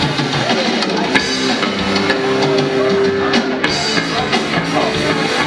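Rock band playing, with electric guitar and drum kit, and a sustained guitar note held about two to three seconds in.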